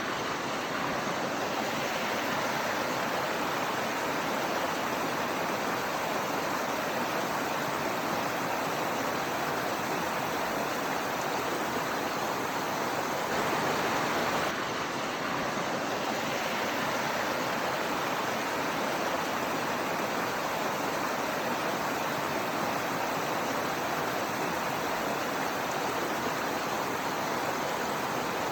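Waterfall water rushing in a steady, even roar, with a slight change in tone about halfway through.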